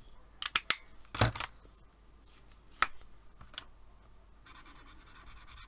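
A few sharp plastic clicks and knocks of marker pens being capped, uncapped and put down on the desk, the loudest about a second in. Near the end, the tip of a marker scratching back and forth on paper.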